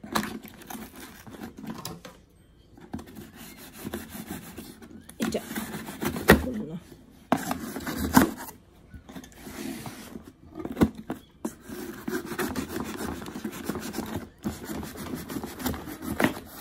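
A delivery package being opened by hand: irregular rubbing and scraping of the packaging, with a few sharp snaps.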